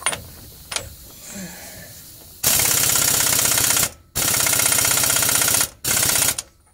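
Campbell Hausfeld air impact wrench hammering on a differential pinion nut in three short bursts, two of about a second and a half and a last short one, snugging the nut a little at a time to set pinion bearing preload. A couple of light clicks come first as the socket is fitted onto the nut.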